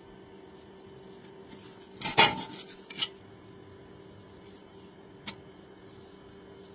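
Metal pieces knocking together: one loud clank about two seconds in, a smaller one about a second later, and a light click a little after the middle, over a faint steady hum.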